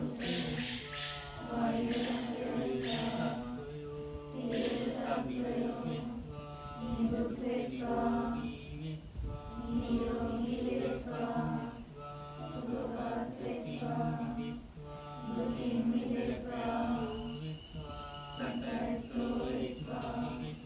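Group Buddhist chanting in Pali, several voices together. The chant falls into regular phrases of about two seconds, each held on a steady low note with short breaks between.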